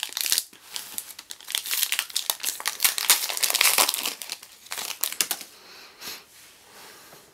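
Foil wrapper of a Panini Donruss basketball card pack crinkling as it is handled and torn open, a dense crackling that thins out after about five and a half seconds.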